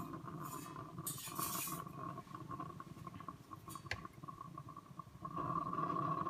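Breville Barista Express espresso machine running with a steady hum, with a short hiss about a second in and a sharp click near the four-second mark.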